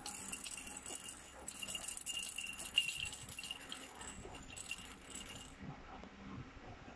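Baby's plastic ball rattle being shaken, the beads inside rattling in quick, irregular jingles that die away after about five and a half seconds.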